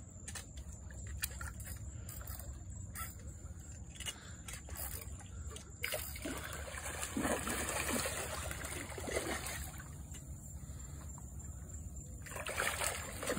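Water splashing and sloshing from a hooked redfish thrashing at the surface as it is played in, heaviest in the middle and again near the end, with faint scattered clicks before it.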